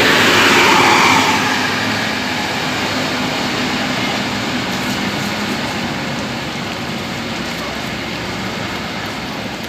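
A large bus passing close by, its noise peaking in the first second and then slowly fading as it pulls away.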